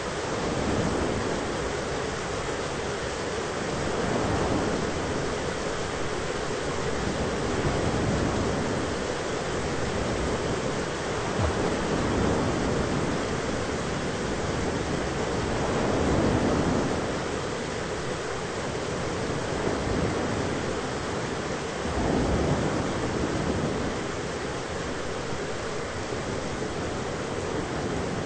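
Thunderstorm ambience for sleep: a steady rushing noise that swells and eases about every four seconds.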